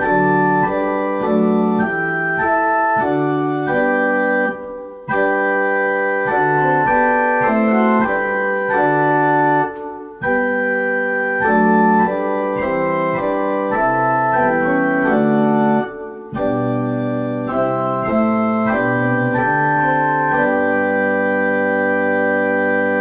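Organ playing a metrical psalm tune in full sustained chords. It plays four phrases with a brief break between each and ends on a long held chord over a low bass note.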